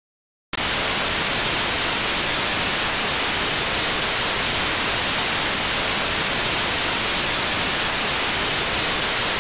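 Loud, steady TV-static hiss of white noise, cutting in suddenly out of dead silence about half a second in.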